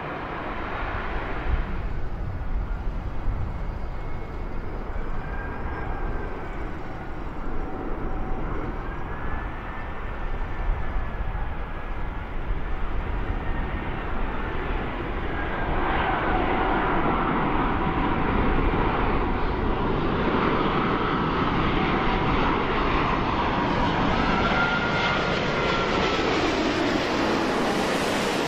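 Jet airliner engines: first an Airbus A340 on the runway, then a four-engine Airbus A380 on final approach. Whines glide up and down in pitch over a steady rumble, and the sound grows louder from about halfway through as the A380 comes low overhead.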